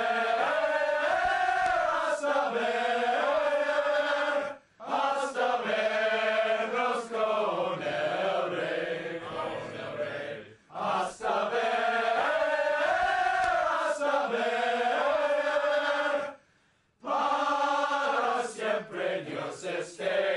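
A group of young men singing a hymn together in long, held notes. The singing breaks off briefly three times.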